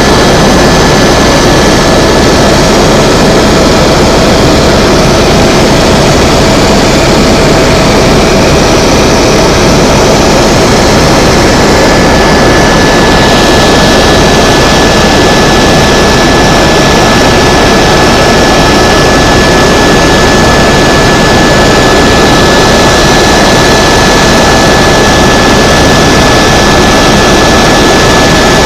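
Tour helicopter in flight, heard from inside the cabin: loud, steady engine and rotor noise with a thin, steady high whine over it.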